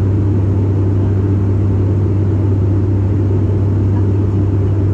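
Steady cabin drone of an ATR 72 turboprop in cruise: a constant low hum from the propellers over a rumbling rush of engine and airflow noise.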